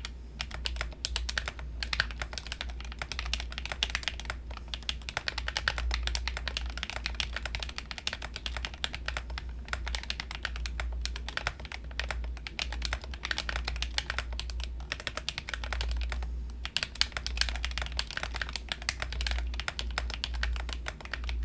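Typing on a 40% Minivan mechanical keyboard with KTT Kang White linear switches: a fast, continuous clatter of keystrokes with a brief pause about sixteen seconds in. A sound the builder finds pretty good but a little bit hollow.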